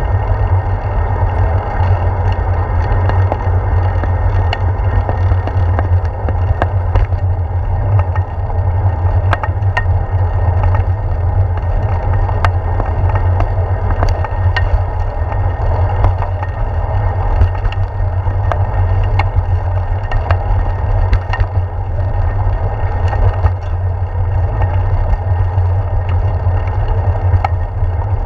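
Bicycle ride noise picked up by a handlebar-mounted GoPro Hero 4: a steady low wind-and-vibration rumble as the bike rolls along a paved path, with scattered small clicks and rattles from bumps.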